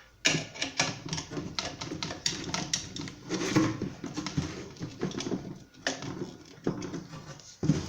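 Screws being driven and tightened with a hand screwdriver on a ceiling fan blade mount: a busy run of irregular clicks and knocks of the screwdriver and metal and plastic parts.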